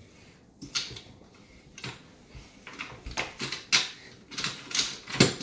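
Plastic clicks as the torsion winding mechanism of a toy model catapult is cranked by hand: short, sharp clicks at an uneven pace, coming more often in the second half.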